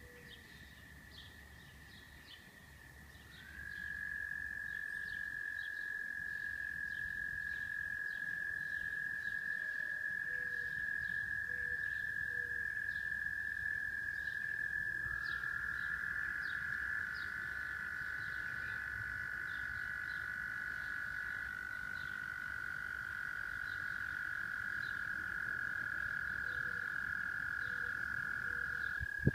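Frogs calling: long, steady, high-pitched trills that overlap, getting louder about three seconds in, with a second, lower trill joining about halfway through. Faint short chirps sound above them.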